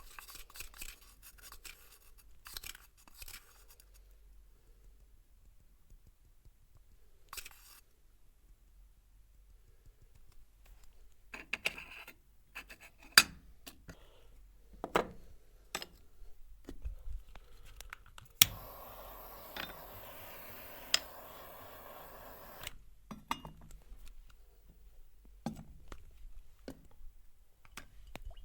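Close-miked head massage: hands scratching and rubbing through hair and scalp in short bursts, with a few sharp slaps or pops, and a steady hiss lasting about four seconds past the middle.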